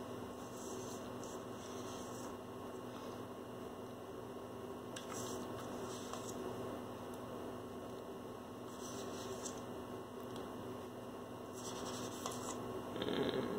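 Steady low electrical mains hum, with a few faint, brief rustles now and then.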